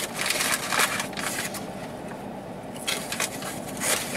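Fast-food paper packaging crinkling in several short bursts, with a pause in the middle.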